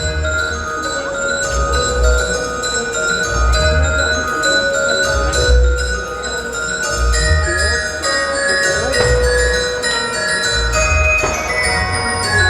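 Festive Christmas music with ringing bells and glockenspiel, with repeated heavy low thumps underneath, roughly once a second.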